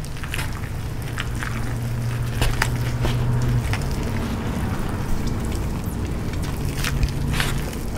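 A wooden stick stirring and scraping wet gym chalk into a paste in a bowl, with repeated short clicks and scrapes against the bowl. A low steady hum runs underneath.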